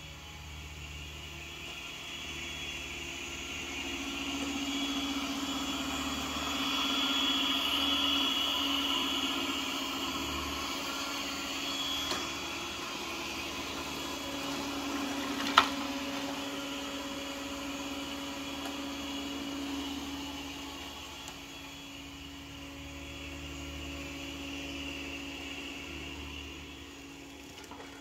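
Yeedi Vac Max robot vacuum running over tile with a steady hum and whine, growing louder over the first few seconds and slowly easing off after. A single sharp click about midway.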